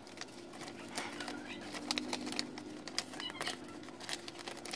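Sheet of paper being handled and folded, rustling with many short crackles and clicks, loudest around the middle.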